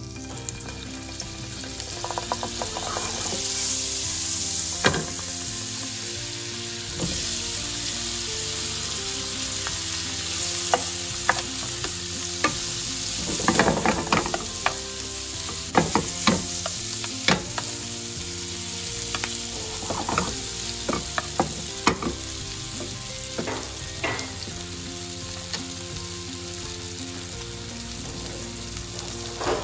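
Sliced sujuk sausage frying in foaming butter and oil in a nonstick pan: a steady sizzle with scattered sharp pops and spatters. About halfway through there is a short run of clattering as the slices are handled in the pan.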